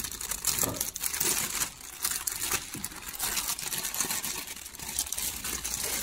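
Thin plastic bag crinkling and rustling as it is handled and pulled open, a dense stream of small irregular crackles.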